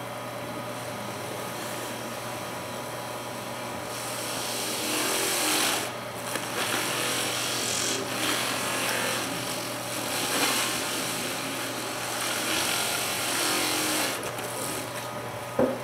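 Wood lathe running with a steady hum while a paper towel is pressed against the spinning turned piece to polish it, giving a rubbing hiss that comes and goes in stretches, loudest about four seconds in.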